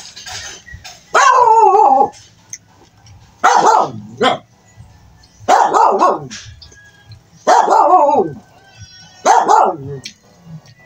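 A dog barking repeatedly, about one drawn-out bark every two seconds, each falling in pitch.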